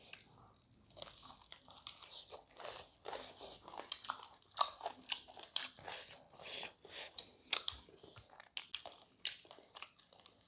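Close-up mouth sounds of someone chewing and crunching cooked chicken, with many short wet clicks and crackles.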